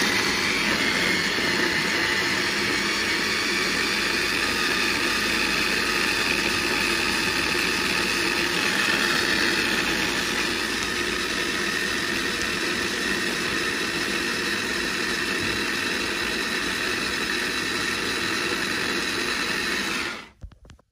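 Electric mini food chopper running steadily under hand pressure, its blades grinding tomatoes, green chillies, garlic and onion into a thick chutney with no water added. It stops abruptly after about twenty seconds.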